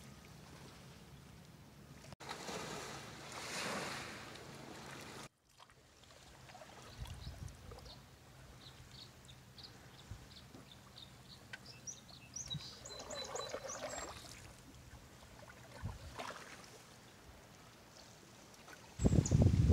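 Canoe paddle strokes swishing and splashing through calm water, with a run of short high bird chirps in the middle. A loud low rumble starts near the end.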